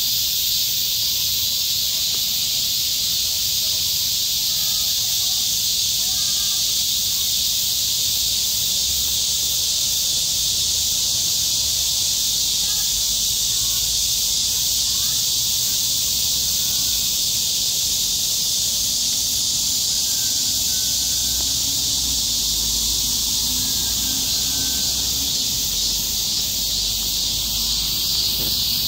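Dense, steady high-pitched chorus of insects shrilling without a break, with a faint low rumble beneath.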